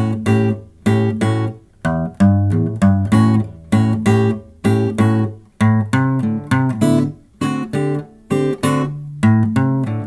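Background music: acoustic guitar played in short plucked and strummed chords, about two to three a second, each dying away quickly.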